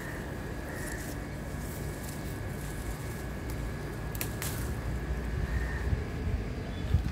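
Outdoor ambience: a low, uneven rumble under a faint steady high whine, with two sharp clicks close together about four seconds in.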